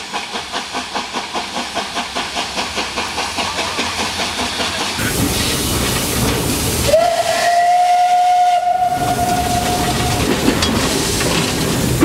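Czech-built 1950 steam locomotive working, its exhaust beats coming quickly at about five to six a second. About five seconds in, the sound changes to the heavy hiss and rumble of the locomotive cab. A steam whistle then sounds one held note for about three seconds, with a short upward slide at its start.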